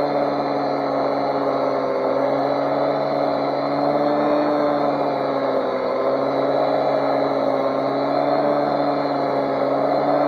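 Small bench grinder with a buffing wheel running steadily while oxidized aluminum is polished off an old razor. Its motor hum wavers slightly up and down in pitch as the work is pressed against the wheel.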